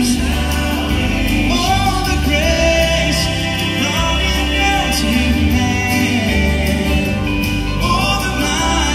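Live gospel music: singing over acoustic guitars, a bass line and a steady beat, played through the hall's sound system.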